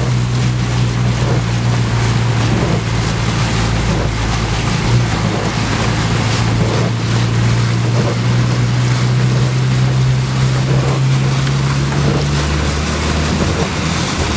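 Jeep engine running steadily in low gear as it pushes through deep floodwater, over a constant wash of water noise. A second, lower engine note joins about 12 seconds in.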